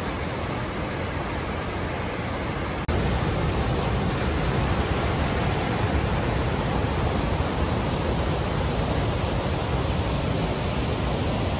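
Sturgeon River running high through rapids and falls: a steady rush of white water. About three seconds in it cuts for an instant and comes back louder.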